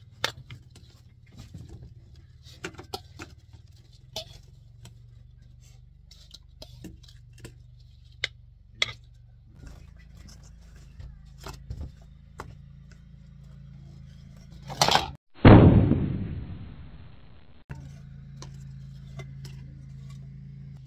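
Metal spoon and fork clicking and scraping against plates and bowls as fried fish and potatoes are served, over a steady low hum. About fifteen seconds in there is a loud burst of noise, followed by a loud muffled rush that fades and stops abruptly.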